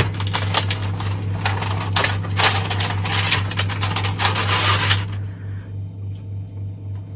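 Thin plastic window film crinkling and crackling as the sheet is handled, a dense run of irregular crackles that dies down about five seconds in.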